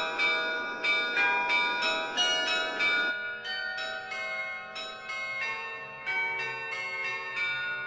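Tower bells pealing: many quick, overlapping strikes that ring on over one another, marking midnight on the tower clock. A rushing hiss lies under the first three seconds.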